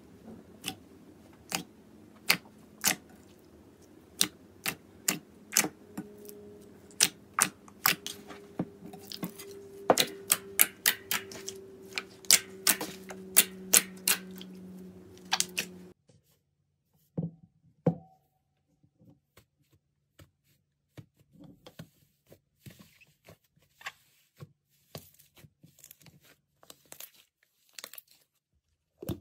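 Slime being squeezed and stretched by hand, giving a string of sharp clicks and pops, sometimes in quick runs. A steady low hum runs beneath the first half and cuts off suddenly. After that the pops come sparser and quieter.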